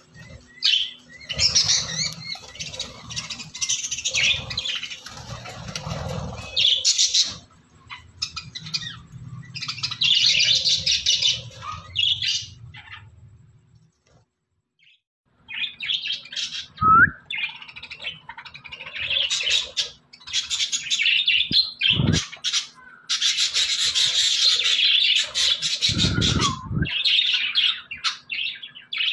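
A flock of budgerigars chattering and warbling, with a break of about a second and a half midway. A few dull thumps come in the second half.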